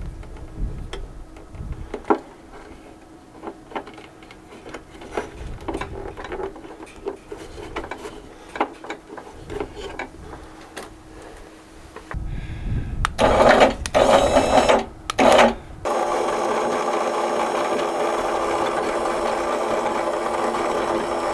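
Clicks and knocks of a small electric winch being fitted and handled, then two loud short bursts, and for the last several seconds the winch's electric motor runs steadily, paying out or winding its cable.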